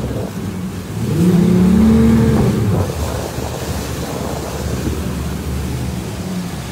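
Outboard motors of a speedboat running steadily at speed, with water rushing past the hull. About a second in, a loud drawn-out tone rises and then falls in pitch for under two seconds.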